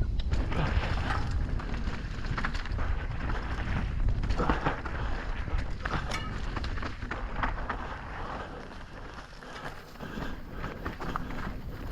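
Electric mountain bike ridden over a rough dirt trail: tyres crunching and rattling over the ground, with wind buffeting the microphone. The noise eases a little near the end.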